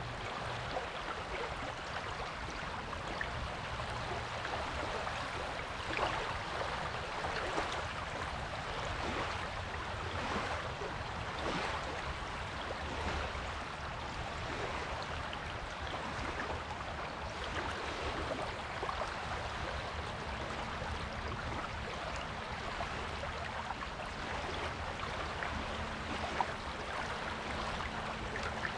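Surf washing onto a beach, a steady fizzing wash of water with small crackles and no distinct wave breaks standing out.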